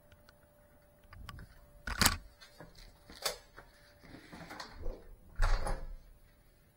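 Three sharp knocks and clunks, about two, three and five and a half seconds in, the first and last loudest, with a softer rustle between the last two.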